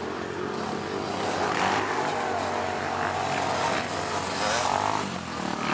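Racing ATV engines on a dirt motocross track, revving up and falling back as the riders work the throttle.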